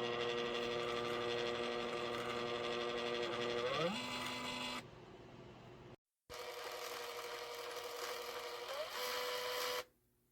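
Vixic M960 thermal label maker's feed motor whining steadily as it prints and feeds out a label. It runs twice, each run shifting up in pitch shortly before it stops.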